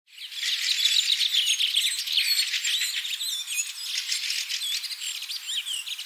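Many songbirds chirping and singing at once, a dense chorus of overlapping short chirps, trills and whistles, fading in over the first half second.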